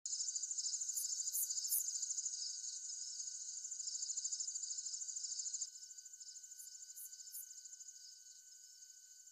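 Crickets chirping in a dense, fast-pulsing chorus, with faint steady high tones beneath. Twice, three short higher chirps stand out, and the chorus drops quieter a little past halfway.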